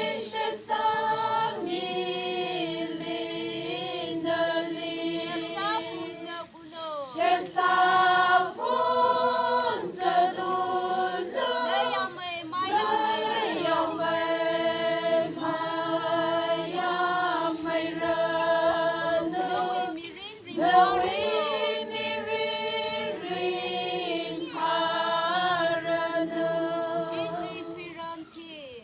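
A group of voices singing together without instruments, women's voices prominent, in long held phrases several seconds each with short breaks between them.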